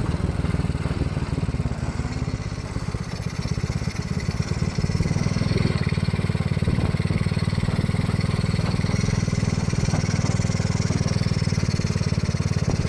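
Homemade mini jeep's Honda Supra X 125 single-cylinder four-stroke motorcycle engine running with a steady firing rhythm. It eases off for a couple of seconds, then gets louder about five seconds in and holds there.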